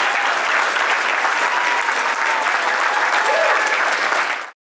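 Audience applauding, with some voices mixed into the crowd; it cuts off abruptly near the end.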